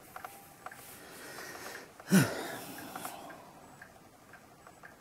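A person's short, loud breath out through the nose about two seconds in, with a falling pitch, over faint small clicks of tweezers and a plastic numeral being handled on the dial.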